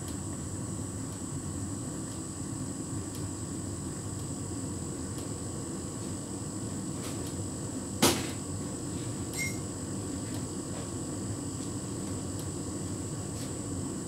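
Hotpoint heat pump tumble dryer running, its drum turning a duvet, with a steady low running noise. One sharp knock comes about eight seconds in, and a smaller click follows shortly after.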